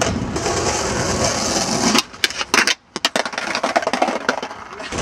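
Skateboard wheels rolling on stone paving, a steady rumble and hiss, then about two seconds in a cut to a run of sharp clacks and knocks with a brief near-silent gap.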